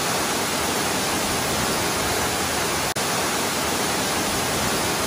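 Tukad Cepung waterfall pouring into its rock cave: a loud, steady rush of falling water, broken by a split-second dropout about three seconds in.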